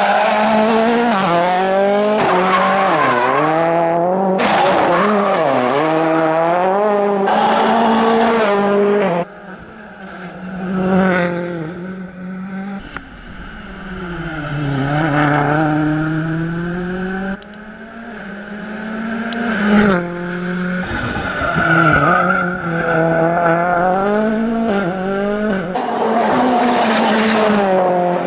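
M-Sport Ford Fiesta RS WRC rally car's engine at hard throttle, the revs rising and falling again and again through gear changes. It is close and loud at first, drops suddenly about nine seconds in to a fainter engine note that swells and fades, and is loud again near the end.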